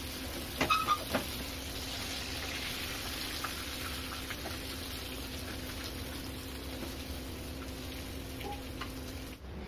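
Bitter gourd slices deep-frying in hot oil in a kadai, a steady sizzle. A few sharp clinks come about a second in, and a low steady hum runs underneath.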